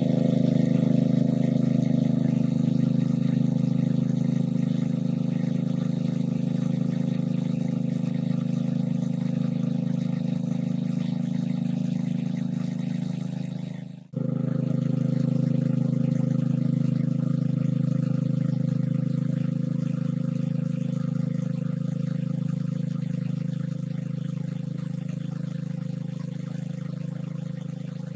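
A steady, motor-like drone that holds one even pitch. It cuts out for a moment about halfway through, then resumes and slowly fades.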